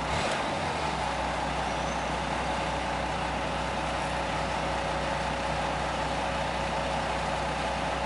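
Cat 287B skid steer's diesel engine running steadily at a distance: an even low drone with a steady higher tone over it.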